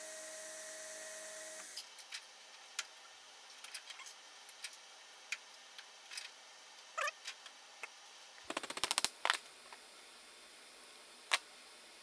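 Belt grinder motor humming steadily, then cutting off suddenly about two seconds in. After it, scattered light clicks and taps as a small cast brass buckle is handled against metal, with a quick rattle of about ten taps a little past two-thirds through.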